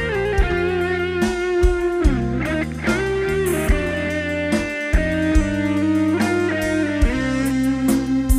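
Live Isan luk thung band playing an instrumental passage with no singing: a plucked-string lead with bending notes over a stepping bass line and drum hits.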